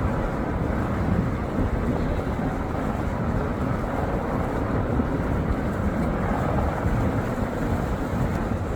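Steady low rumble mixed with wind on the microphone, with no clear rhythm or single sound standing out.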